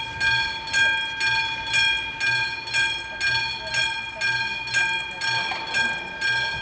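Electric warning bells of an AŽD 71 level crossing ringing, about two strikes a second, each strike leaving a ringing tone that carries to the next. It is the warning that the crossing is closing for an approaching train.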